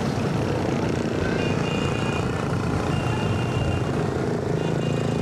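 Motorbike engines running in street traffic, heard from a vehicle moving among them, as a steady low drone. Short high-pitched tones sound over it three times.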